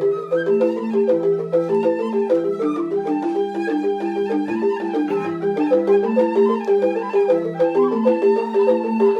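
Balinese rindik bamboo xylophones playing a fast interlocking pattern of short struck notes over slower, held low notes.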